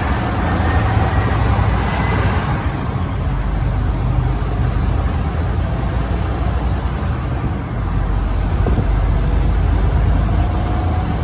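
A truck driving at highway speed: steady engine and road rumble, with tyre and wind noise.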